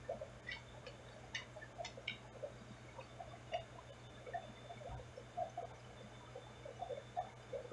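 Aquarium heard from underwater: faint irregular soft ticks and blips over a steady low hum, with a few sharper clicks in the first two seconds.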